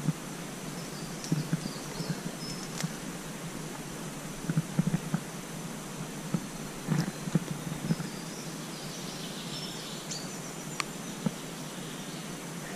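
Irregular footsteps crunching and rustling through pine-needle litter, twigs and ferns on the forest floor, over a steady outdoor hiss. A few faint bird chirps come and go.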